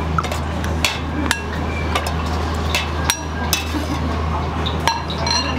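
Ramen-shop kitchen clatter: a handful of sharp knocks and clinks of metal utensils and bowls, a few with a brief ring, over a steady low hum.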